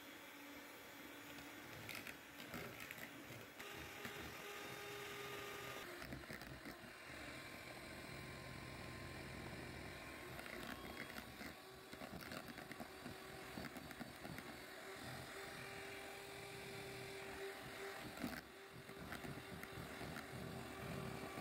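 Electric hand mixer running steadily, its beaters whipping frozen strawberries into a pink foam in a plastic jug. The motor hum holds an even pitch, with a brief break and a click near the end.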